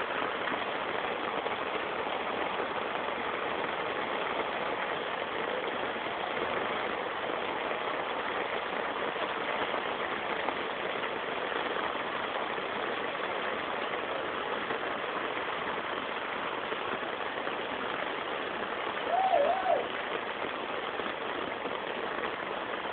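Steady hiss of heavy monsoon rain falling on a flooded street. Near the end a brief wavering call rises above it.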